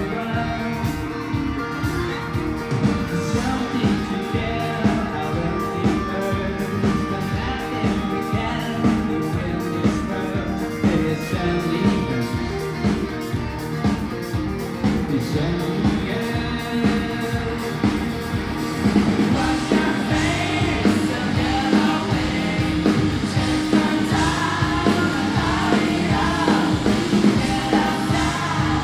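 Rock band playing live with drums, guitars and a lead singer, the drums keeping a steady beat throughout.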